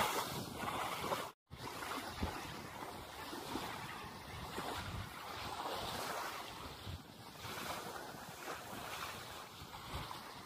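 Small waves lapping and washing up onto a sandy shore, with wind buffeting the microphone. The sound drops out for a moment about a second and a half in.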